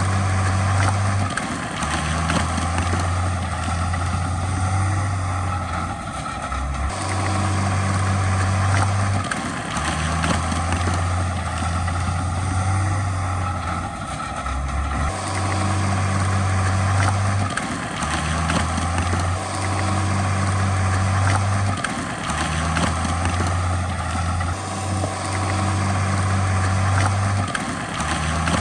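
Heavy diesel engine running, a low drone whose pitch steps up and down every couple of seconds as the machine works.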